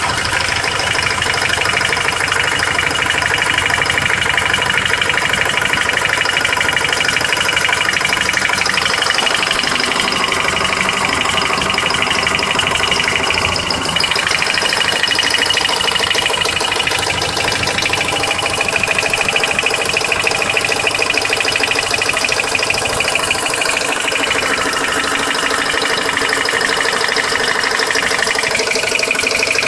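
Car engine idling with a fast, even ticking, the tick the owner places somewhere around the oil pan and hears from start-up until shut-off. A high whine runs over it and shifts pitch a few times.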